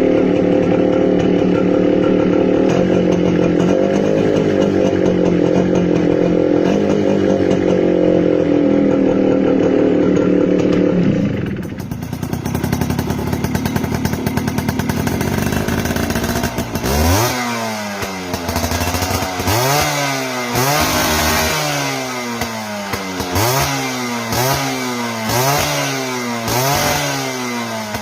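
Suzuki AX 100's two-stroke single-cylinder engine held at high, steady revs. It drops back about twelve seconds in, then from about seventeen seconds is revved up and down over and over, roughly every second and a half.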